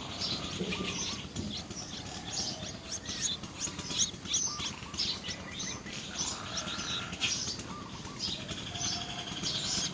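Many small birds chirping at once: a dense chorus of short, high chirps, overlapping without pause, with a few lower warbling calls mixed in.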